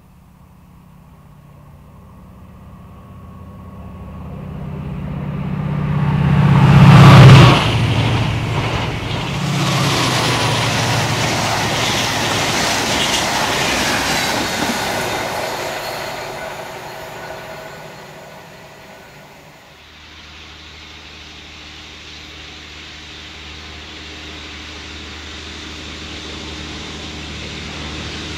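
A diesel locomotive and its train pass at speed: the engine note builds to a loud peak as the locomotive goes by about a quarter of the way in, then the carriages rush past and the sound fades. After an abrupt change about two-thirds through, another diesel engine's steady note slowly grows louder as it approaches.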